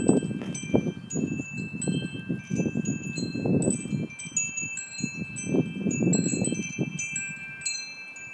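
Metal chimes ringing with scattered, irregular strikes at several high pitches, some notes ringing on for seconds, over an uneven low rushing noise.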